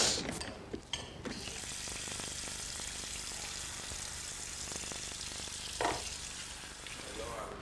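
A steady spraying hiss that starts about a second in and fades near the end, with a short knock partway through.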